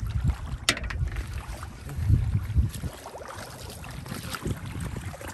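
Shallow muddy water sloshing and splashing as a plastic basket is scooped through it and drained, with wind rumbling on the microphone. There is a single sharp click about a second in.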